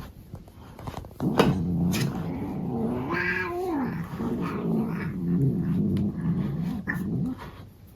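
Domestic cat making a long, low growling yowl while being brushed, wavering up and down in pitch, starting about a second in. About three seconds in it rises to a higher wail before dropping back to the low growl.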